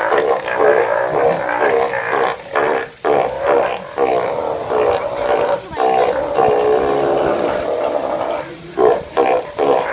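Steller sea lions calling, one long pitched call after another with brief pauses between them.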